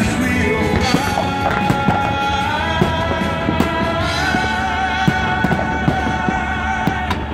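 Music with long held, sung-sounding notes that step up in pitch twice, over frequent sharp bangs and pops from fireworks bursting.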